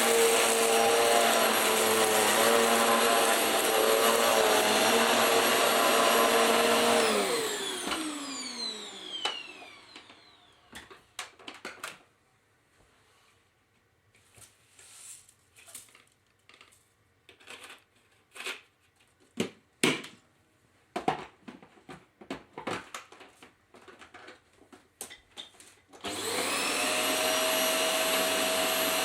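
Hoover Slalom upright bagless vacuum cleaner's motor running steadily, then switched off about 7 s in and spinning down with a falling whine. About sixteen seconds of scattered clicks and knocks follow, then the motor is switched back on and runs up to a steady pitch near the end.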